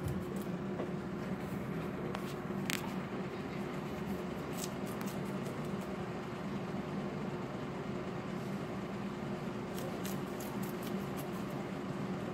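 A guinea pig chewing a snack: scattered small crunching clicks, with a cluster near the end, over a steady low hum.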